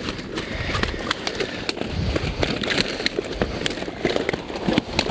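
A keepnet heavy with fish being lifted from the water: scattered splashes, drips and rustles, with gusts of wind rumbling on the microphone.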